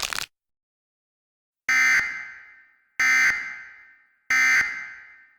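Three harsh, buzzy Emergency Alert System end-of-message data bursts, about a second and a half apart, each cut short and then fading with an echo. They signal that the alert broadcast is over.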